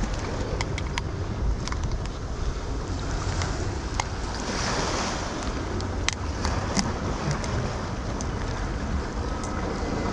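Surf washing against jetty rocks with wind buffeting the microphone, swelling into a louder wash of water about four to five seconds in. Small sharp clicks come and go throughout as metal pliers work a jig out of a bluefish's mouth.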